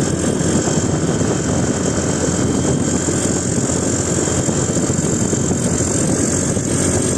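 Bus engine idling, a steady low rumble.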